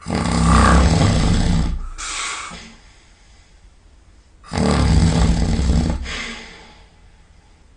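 A man snoring very loudly in his sleep: two long snores about four and a half seconds apart, each a deep inhaled snore followed by a shorter, softer breath out.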